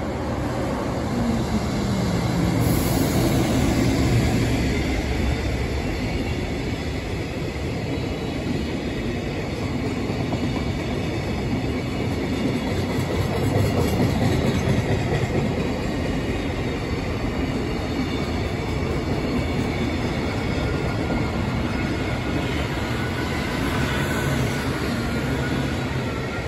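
A freight train passes: the locomotive goes by, then a long string of container wagons rolls past, wheels clattering rhythmically over the rail joints with a steady rumble. A tone falls in pitch in the first few seconds as the locomotive passes.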